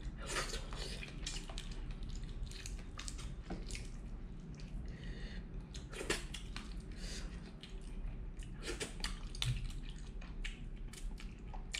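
Wet eating sounds as a man eats crab with his fingers: a steady run of small smacks, slurps and clicks from his mouth and the shell.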